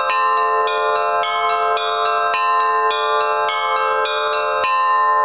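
Middle-row bells of a Russian-style bell set struck in a quick alternating pattern, about four strokes a second, the left hand on the strong beat and the right on the weak. The strikes stop near the end and the bells ring on.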